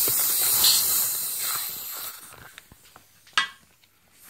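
Compressed air hissing out of a thermal expansion tank's air valve, dying away about two seconds in, then a single sharp click.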